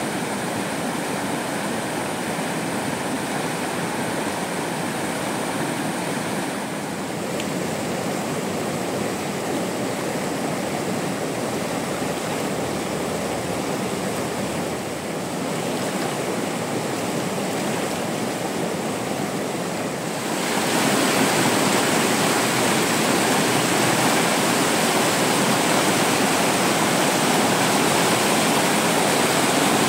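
Steady rushing water, which becomes suddenly louder and hissier about two-thirds of the way through.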